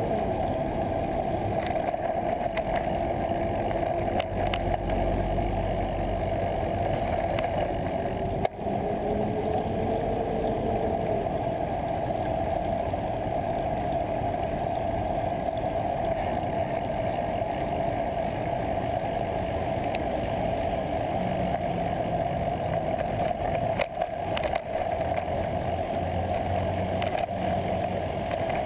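Steady wind and road noise from a moving bicycle, picked up by a bike-mounted GoPro, with city traffic around it. A single sharp knock comes about eight seconds in, and a low engine hum from traffic joins near the end.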